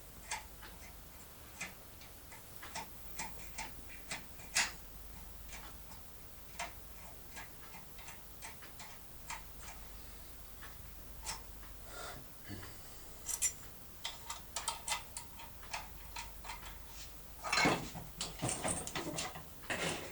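Small, irregular metallic clicks of a foil-impression lock pick being worked inside a lock cylinder, with a flurry of louder scraping and rattling near the end.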